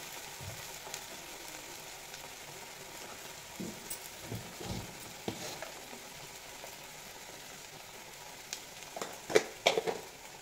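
Dried prawns, onion and masala paste frying in mustard oil in a metal kadai, with a steady sizzle. A few clinks and knocks come through, with a louder cluster near the end.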